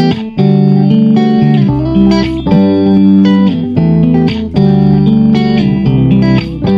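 Background music led by a plucked guitar, playing sustained chords that change every second or so.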